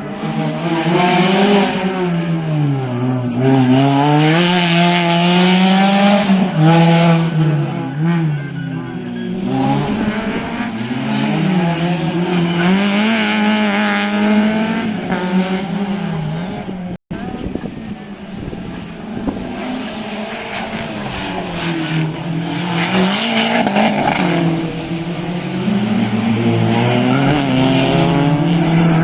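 Competition car's engine revving hard, its pitch rising and falling again and again as it is driven through a tight course. The sound cuts out for an instant about two-thirds of the way through.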